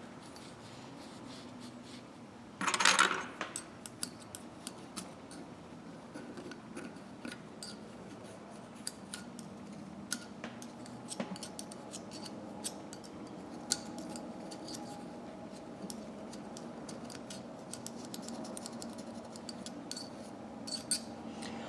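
Faint scattered clicks and light scraping of a thin metal tool wrapped in 0000 steel wool working in the grooves of a metal ratchet head, with a short louder rustle about three seconds in.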